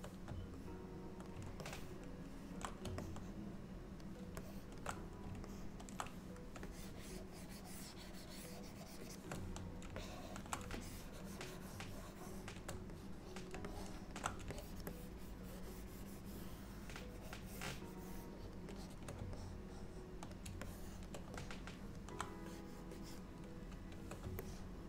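Scattered computer keyboard clicks and light scratching, over a steady low hum.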